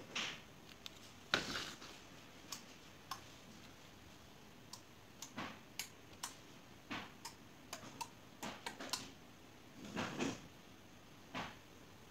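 Irregular sharp clicks, singly and in quick clusters, as a home-automation touch switch panel is switched from its glass touch keys and a phone app: the relays clicking as the wired lights turn on and off.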